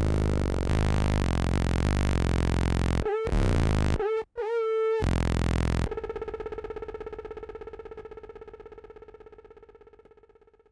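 Electronic synthesizer music: a dense, buzzing drone that breaks up with brief glitchy cut-outs a few seconds in, then gives way to a single rapidly pulsing tone that fades away.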